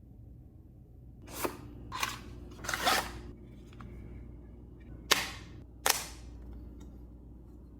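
A UAG phone case and its plastic packaging being handled: a few sharp plastic snaps and clicks, with a short scraping rasp about three seconds in.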